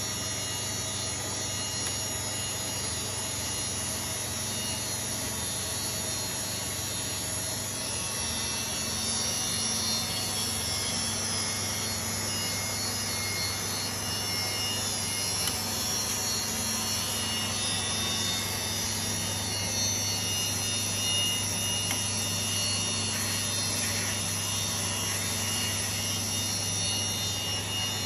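Analog mechanical engraving machine running, its spindle motor humming steadily while the cutter works the material; the sound gets a little louder about a third of the way in.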